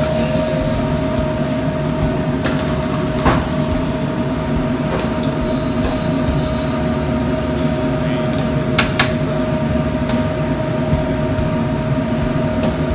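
Steady drone of kitchen fans and gas range burners with a constant hum in it. A few sharp clicks of metal tongs against a steel skillet come through: one about a third of the way in, and two close together about two-thirds in.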